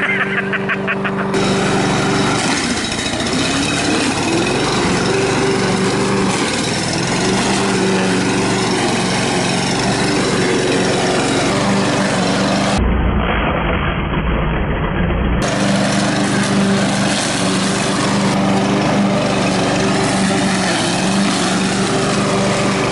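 Victa Super Mulcher walk-behind lawn mower's Briggs & Stratton engine running steadily under load while mowing. About 13 seconds in, the sound turns duller with a low rumble for two or three seconds, then the engine's steady note returns.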